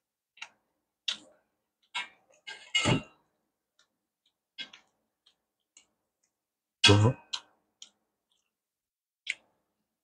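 Close-miked eating sounds: chopsticks clicking and scraping against stainless-steel bowls while pad thai noodles are picked up and eaten. The sounds come as short, separate clicks and bursts with silence between, the loudest about three seconds in and about seven seconds in.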